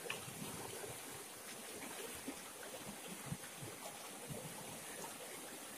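Steady rush of a shallow, stony river, with small splashes and drips as hands rinse a fish in the water.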